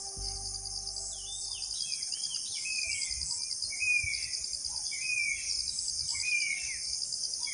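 Forest ambience: a steady, high, pulsing insect chirring, with a bird repeating a short downward-slurred call about once a second from about a second in.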